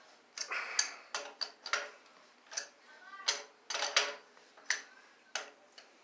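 Pliers' jaws clicking against a metal nut as it is turned tight on a threaded rod: a string of sharp, irregular metal clicks, about two a second, as the jaws grip and re-grip.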